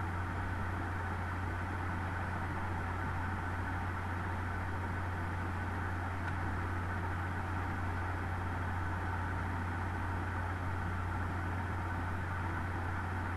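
Steady low hum with an even hiss over it, unchanging throughout: the background noise of a desktop microphone with nobody speaking.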